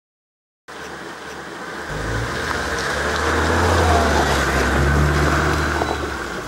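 A car driving past close by on a road strewn with dry leaves, its engine and tyre noise building to a peak about four seconds in and then fading as it drives away. The sound cuts in abruptly just under a second in.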